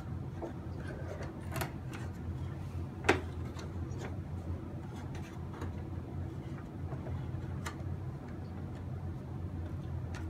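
Hands handling a plastic RC boat hull while pulling out its LiPo battery: scattered small clicks, rubs and knocks, with one sharp knock about three seconds in.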